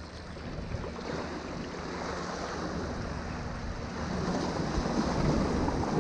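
Water splashing and sloshing among shoreline rocks as a hooked Atlantic bonito thrashes at the surface, mixed with waves washing over the rocks; it grows louder toward the end.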